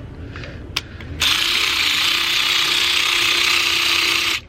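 Electric ratchet spinning out an upper alternator mounting bolt: one steady, continuous whir lasting about three seconds, starting just over a second in and cutting off suddenly near the end. A few light clicks come before it.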